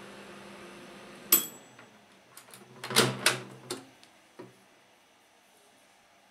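Sharp microwave oven running on high with a low electrical hum while heating a cup of water. About a second in, a single sharp metallic ding marks the end of its dial timer and the hum dies away. Then the door latch clacks open about three seconds in, followed by a few light knocks as the cup is lifted out.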